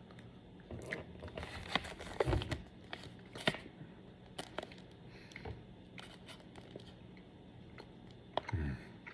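Snack pouch being handled, with crinkling and tearing as it is opened: irregular bursts of crackles for the first five seconds or so, then only occasional light rustles.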